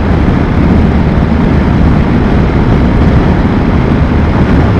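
BMW G650GS single-cylinder motorcycle riding at a steady speed: a loud, even rush of wind over the microphone with the engine running underneath.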